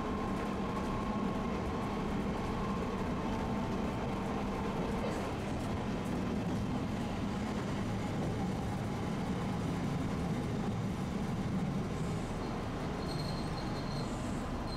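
Tosaden streetcar running on its rails: a steady rumble, with a faint whine that fades out about five seconds in.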